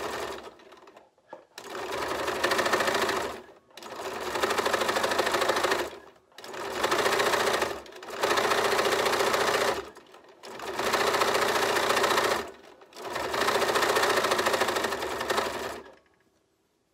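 Bernina sewing machine stitching fabric strips together in repeated runs of about two seconds, with short pauses between them as the work is repositioned. It stops about a second before the end.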